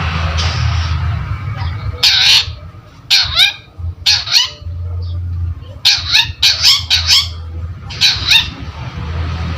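Long-tailed shrike (cendet) giving about eight short, harsh, rasping calls, some sweeping downward, with a quick run of four near the middle. A steady low hum runs underneath.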